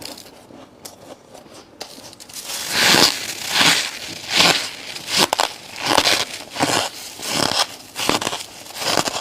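Crunchy freezer frost ice being chewed close to the microphone: faint crackling at first, then a steady run of loud crunches, about one every 0.7 seconds, from a few seconds in.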